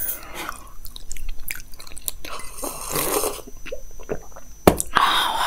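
Close-miked eating and drinking sounds: chewing and sipping hot tea from a glass, with one sharp click near the end.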